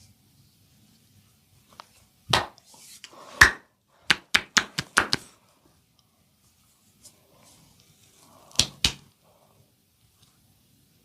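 Hands striking a person's body in percussive massage strokes: two single slaps, then a quick run of about six taps in just over a second, and a pair of strikes near the end.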